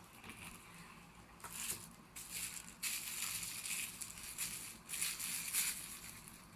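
Rustling and crinkling handling noise in irregular bursts as a multi-tool is pulled out of its pouch.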